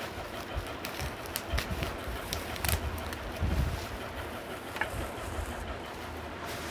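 Plastic bubble wrap crinkling and rustling as it is handled and pulled open, with scattered sharp crackles over low rumbling handling noise.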